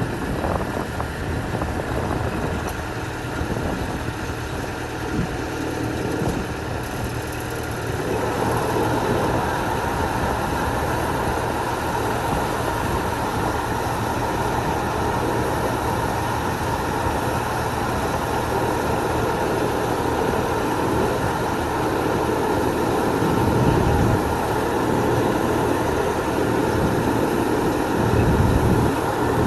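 Kubota DC-70 combine harvester running, its three-cylinder turbocharged diesel engine working steadily. About eight seconds in the sound grows louder and fuller and stays that way.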